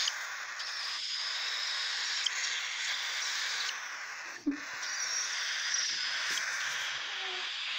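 Three-to-four-week-old cockatiel chicks giving harsh, hissing begging calls almost without pause, with a short break about four and a half seconds in.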